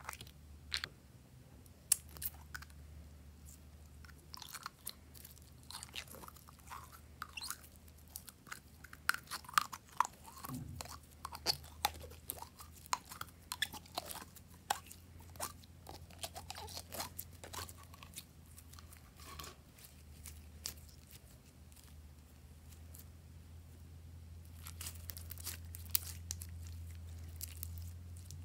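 Glossy slime squeezed out of a plastic bottle and worked between the fingers: irregular sticky clicks and crackles, thickest in the middle stretch and again near the end.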